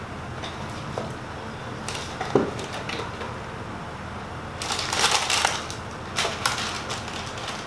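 Crispy fried chicken crunching as it is bitten and chewed: a few soft clicks, then two clusters of crackly crunches about five and six seconds in.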